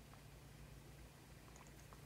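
Near silence: room tone with a faint steady low hum and a few very faint ticks.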